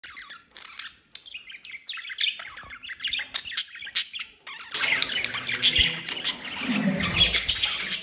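Budgies and other small cage birds chirping and chattering, many short notes one after another. About five seconds in, the sound becomes fuller and denser, with a low rumble beneath the chirps.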